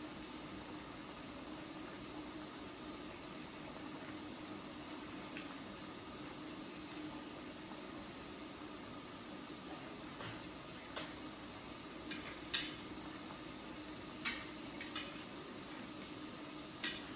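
Steady hiss of broth simmering and food sizzling on an electric hot pot with a centre grill plate, with a faint steady low hum under it. In the second half a handful of short sharp clicks, utensils knocking against the pot.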